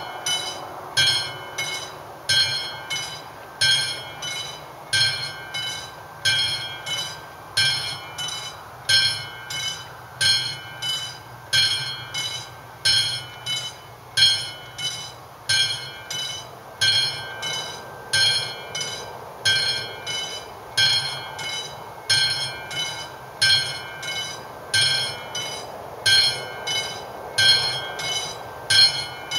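Mechanical bell of an AŽD 71 level-crossing warning device ringing in a steady, even rhythm of strikes. The crossing is activated, warning of an approaching train.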